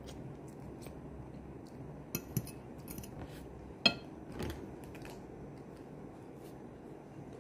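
Metal cutlery clinking against a plate while eating: a few sharp clinks, the loudest about four seconds in with a short metallic ring.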